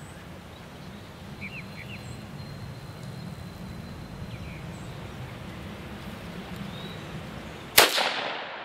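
A few faint bird chirps over steady outdoor background, then about eight seconds in a single sharp shot that rings out briefly: a .17 HMR round fired from a single-shot shotgun through a 12-gauge to .17 HMR rifled barrel adapter.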